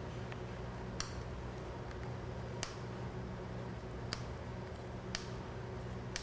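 Sharp single snips, about five, a second or more apart, of a cutting tool working the sheathing and zip tie off a motorcycle wiring harness, over a steady low hum.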